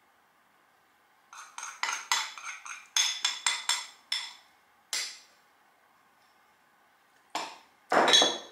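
Metal spoon tapping and scraping against a bowl as its contents are knocked out into a jug. A quick run of ringing clinks starts about a second in and lasts a few seconds, then comes one more clink, and two louder knocks near the end.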